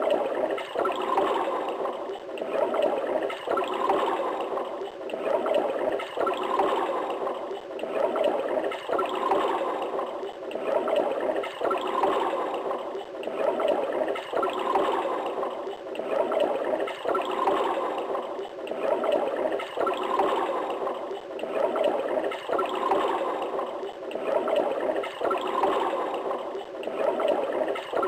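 Water running from a tap into a bathtub as it fills, a steady splashing rush that swells and eases in a regular rhythm.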